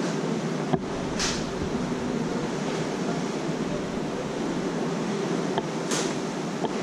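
Steady rush of wind and sea on the open deck of a cruise ship under way, with two brief hissing swells, about a second in and again about six seconds in.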